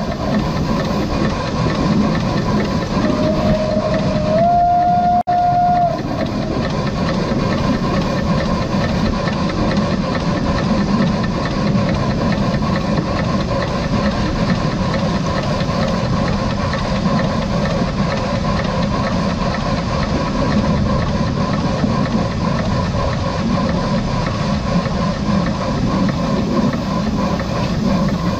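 Steam locomotive whistle blowing one blast from about three seconds in, stepping up in pitch partway through and stopping near six seconds. After it, the steady rumble of the train running along the track.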